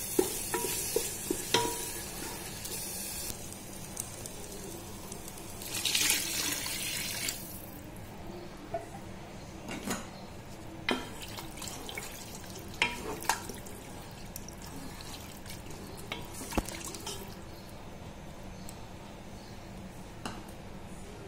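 Onion-tomato masala sizzling in an oiled pan, with a few knocks of the spoon. About six seconds in, water is poured in with a brief loud splash and the sizzling dies away; after that the pan is quiet apart from occasional spoon knocks against the pot.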